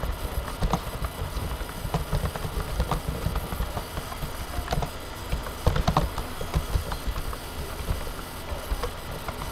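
Typing on a computer keyboard: irregular keystroke clicks over a steady low background rumble.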